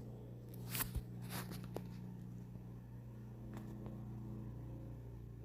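Low steady room hum, with a few faint clicks and rustles in the first two seconds.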